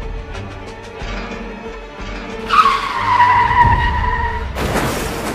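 Car tyres screeching in a skid, one squeal that starts suddenly about halfway in and falls slightly in pitch over about two seconds, over dark background music. Near the end it gives way to a sudden loud burst of noise as the crash begins.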